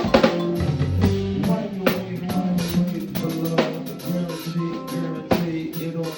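Instrumental music: a drum-kit beat with a pitched melodic line and no vocals.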